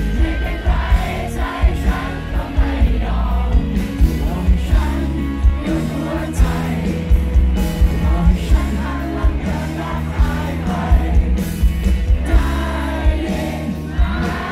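Live band and male singer performing a pop song over heavy bass and a steady drum beat, heard loud from among the audience.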